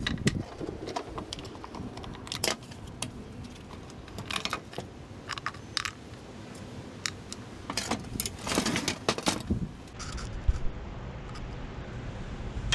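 Irregular clicks and clatter of a push reel mower's plastic wheel, hub cap and small metal drive parts being pulled off and set down on a glass tabletop, with a busier run of knocks about nine seconds in.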